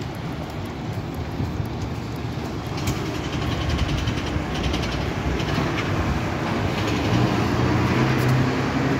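Double-decker bus's diesel engine running as the bus drives past close by, over a background of town traffic noise; it grows louder from about three seconds in, with a steady low engine hum strongest near the end.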